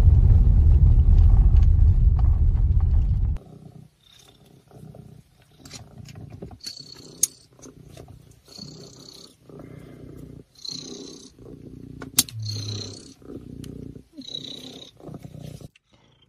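Steady road rumble inside a moving car's cabin, cut off suddenly after about three and a half seconds. Then an Abyssinian cat purring close up in rhythmic pulses about once a second, with two sharp clicks.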